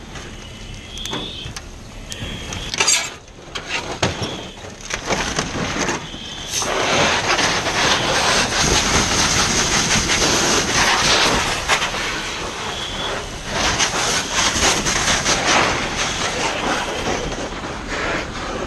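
Fire hose stream spraying water onto burning debris, a loud rushing spray in two long spells with a short let-up between them. A few sharp knocks come in the first few seconds.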